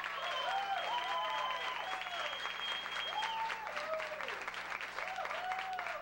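Live theatre audience applauding and cheering, with a long high whistle held over the first few seconds and many short rising-and-falling shouts.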